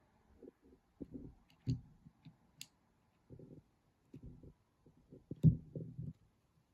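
Small clicks and taps of 3D-printed plastic model parts being handled and pressed together, irregular and faint, with one louder knock about five and a half seconds in.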